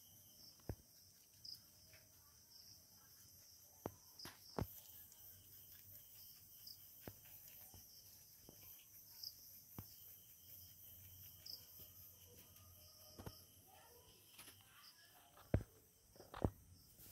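Faint, steady high-pitched chirring of night insects, with a few sharp clicks and knocks scattered through it, the loudest two near the end.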